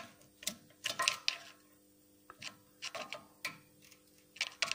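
Irregular sharp metallic clicks and clinks from a rear disc brake caliper and its pads being wiggled by hand, checking for loose pads whose rattle causes the knock over small bumps.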